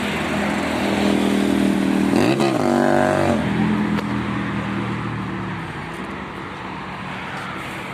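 A motor vehicle's engine passes on the road over steady traffic noise. It grows louder in the first few seconds, dips and rises in pitch at its closest, then fades away.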